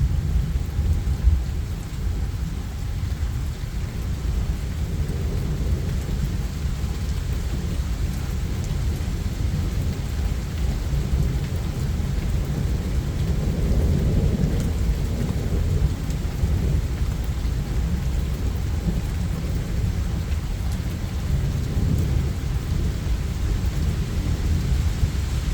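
Rain falling steadily under a thunderstorm, with low rolling thunder rumbling continuously and swelling louder about halfway through.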